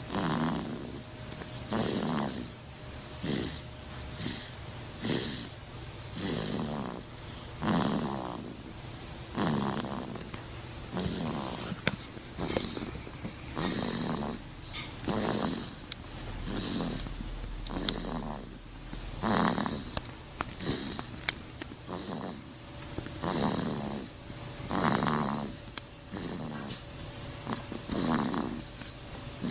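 Snoring in short, regular snores about every one to two seconds, steady throughout.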